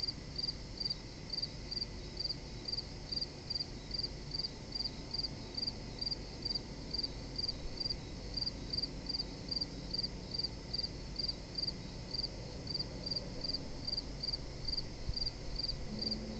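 Crickets chirping in an even rhythm, about two to three short chirps a second, over a low steady rumble.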